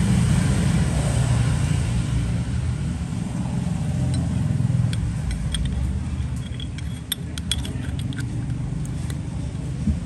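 Steady low rumble throughout, with a scatter of light metallic clicks and clinks from about four seconds in as a Zippo lighter is handled.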